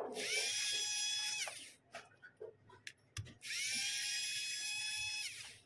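Pen-style electric precision screwdriver running twice, each run about one and a half seconds, driving the tiny screws of a phone's mid-frame plate. Its high whine rises as the motor spins up and drops as it stops.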